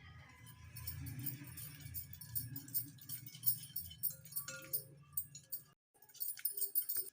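Background music with jingling, tambourine-like percussion over a low steady bass. It drops out briefly near six seconds, then comes back.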